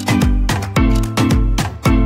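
Music with a heavy bass beat about twice a second and held instrumental notes over it.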